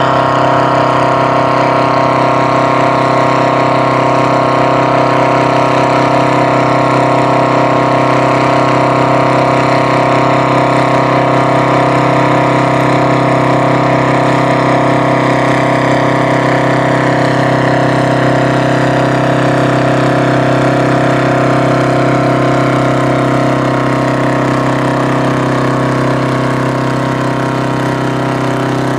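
Oliver 1900 FWA tractor's GM 4-53 supercharged four-cylinder two-stroke diesel running loud and steady under load while pulling a disc harrow.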